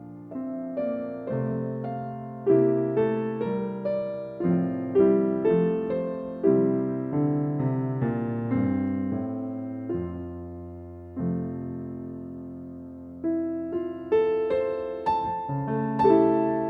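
Slow, gentle solo piano music: struck chords and single notes that ring and fade over a held bass, with a pause about ten seconds in before the playing resumes.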